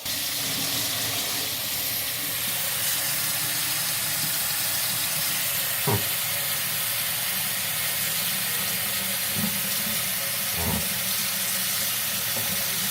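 Water running steadily at full flow from a just-opened tap, a constant hiss that starts suddenly. A few faint knocks come through it about halfway and near the end.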